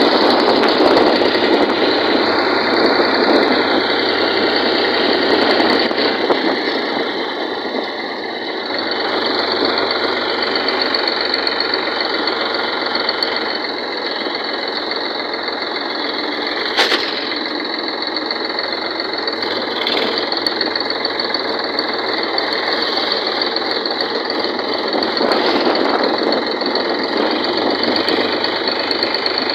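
Sonalika tractor's diesel engine running steadily under way, a dense, even clatter heard from the driver's seat. A single sharp click about halfway through.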